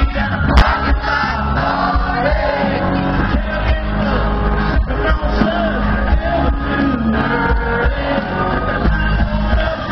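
Loud amplified country-style music with a singer, and people in the crowd shouting and whooping along.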